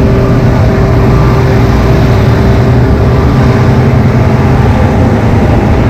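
Motor vehicle engine running steadily close by in street traffic: a loud, continuous low hum.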